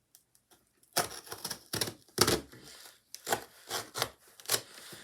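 Knife cutting through packing tape and cardboard on a shipping box: a string of irregular scraping, slicing strokes beginning about a second in, the loudest just after two seconds.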